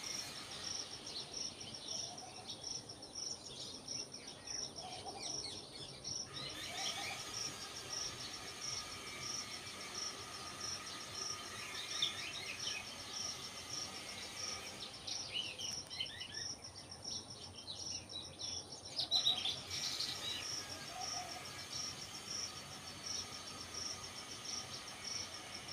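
An insect, cricket-like, keeps up a steady high pulsing trill, with scattered short bird chirps over it. The chirps come thickest about three quarters of the way through.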